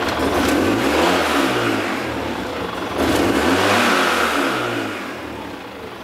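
Polaris RZR side-by-side engine revved twice in quick blips, its pitch rising and falling each time, as the freshly fitted aftermarket clutch kit and belt are given a test spin.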